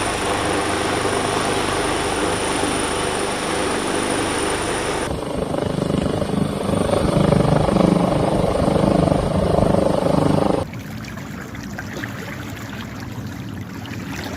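Helicopter rotor and engine noise, steady and loud, with sudden changes in level where clips change: louder with a pulsing low rumble in the middle, quieter near the end.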